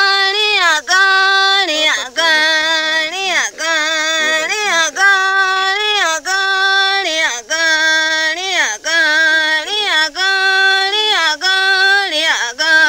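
A woman singing alone, with no accompaniment: a chant-like melody of long held notes that move back and forth between two main pitches, each note ending in a quick downward slide.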